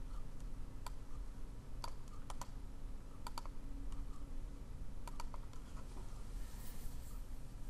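Scattered sharp clicks of a computer mouse and keys, about a dozen, several in quick pairs, over a steady low hum.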